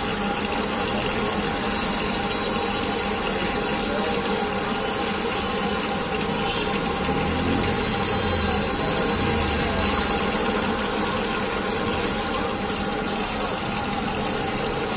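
Steady street traffic noise with engines running, swelling as a vehicle passes close about halfway through.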